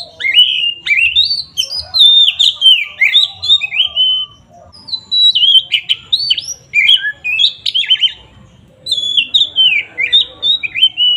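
An oriental magpie-robin (kacer) singing loudly in rapid, varied phrases of sliding whistled notes. It sings in three bouts, with short pauses about four and about eight seconds in.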